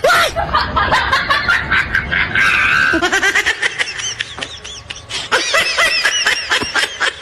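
People laughing in quick repeated bursts of snickering and giggling.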